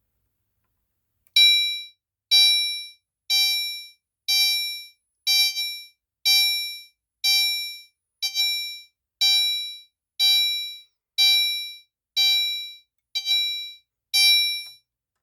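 Gentex Commander 3 chime horn strobe sounding its continuous chime tone: a repeating electronic ding about once a second, each tone fading quickly. It starts about a second in and stops shortly before the end, fourteen chimes in all.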